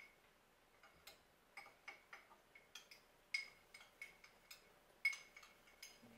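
Small spoon clinking against a ceramic bowl while stirring a sauce: a run of light, irregular clinks, with a few louder ones.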